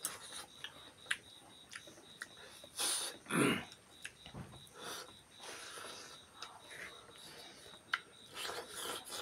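Mukbang eating sounds: wet mouth clicks and chewing noises from people eating rice and braised beef trotter with their hands, close to the microphone. A louder breathy noise comes about three seconds in.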